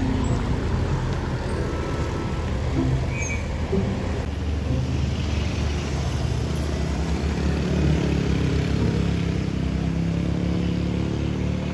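Automatic motor scooters and cars climbing a steep hill, their engines running steadily under load, with a continuous wash of traffic noise.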